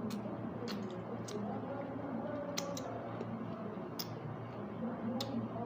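Crisp crunches of breaded fried chicken being bitten and chewed: about seven short, sharp crackles at uneven intervals, over a steady low hum.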